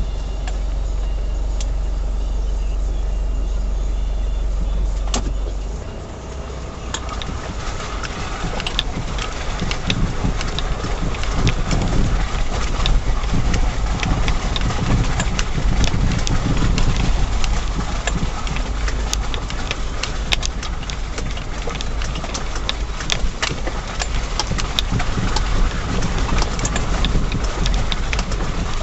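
The diesel engine of a Mitsubishi Shogun 3.2, heard from inside the cabin as it crawls along a rough, rutted track. It is a steady low drone at first, then from about six seconds in it turns rougher, with frequent sharp knocks and rattles as the vehicle jolts over the ruts.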